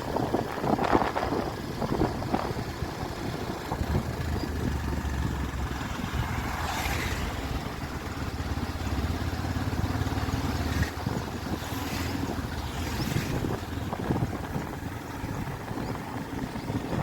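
Motorcycle engine running while riding, with wind noise on the microphone and a few brief hissy gusts.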